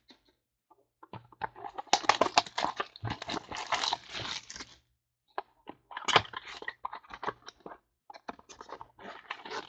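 Trading card pack packaging and cards being handled: crackly crinkling and tearing in three bursts with short pauses between them.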